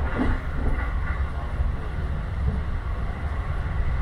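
Steady low rumble of a JR Tokaido Line train running along the track, heard from inside the carriage.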